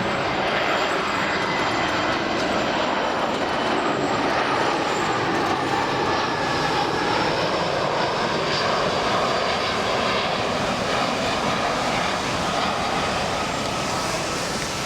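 Airbus A320's CFM56 turbofan engines as the jet comes in to land: a steady rush of jet noise with a faint whining tone, easing slightly near the end.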